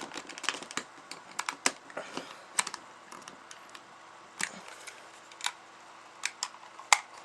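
Small plastic parts of an airsoft pistol clicking and tapping as they are fitted together by hand: a run of irregular sharp clicks, thick at first and thinning out toward the end.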